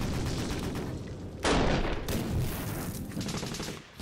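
Dense, rapid battle gunfire, with a sudden louder burst about a second and a half in.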